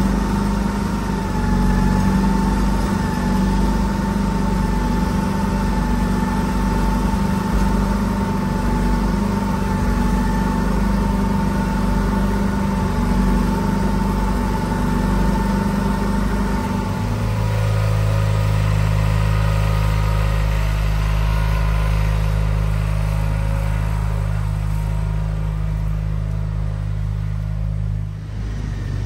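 1992 John Deere 318 garden tractor's two-cylinder Onan engine running steadily while its front snowblower throws wet, heavy snow, with a steady whine over the engine. A little past halfway the whine stops and the engine settles into a lower, steady hum.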